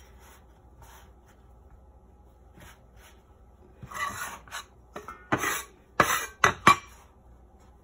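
Metal bench scraper scraping across a bamboo cutting board in several short strokes, starting about four seconds in, with soft handling of pie dough before that.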